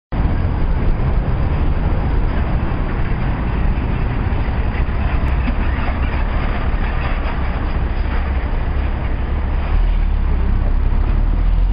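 Heavy-vehicle street traffic: the diesel engines of a box truck and an RTS city transit bus running close by, a steady deep rumble under road noise. The rumble grows louder near the end as the bus pulls forward.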